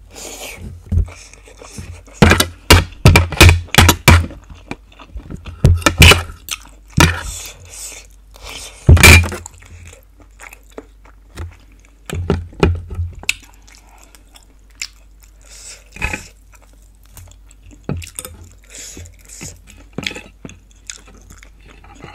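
Close-miked chewing and crunching of pork ribs, a run of sharp, crackling bites and wet mouth sounds, loudest and densest in the first half and thinning to softer chewing later.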